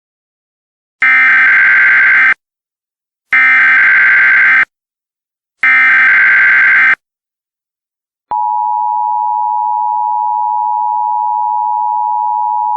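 Emergency Alert System signal: three short, harsh data bursts of the SAME header, about a second apart. About eight seconds in, the steady two-tone attention signal begins and holds.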